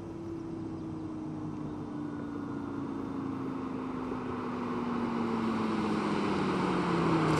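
Lamborghini Gallardo V10 running, its engine note slowly falling in pitch as the revs drop, under a rushing noise that grows steadily louder toward the end.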